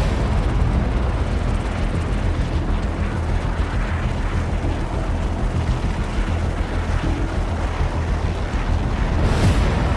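Helicopter engine and rotors running, a steady heavy rumble, with a brief surge of noise near the end.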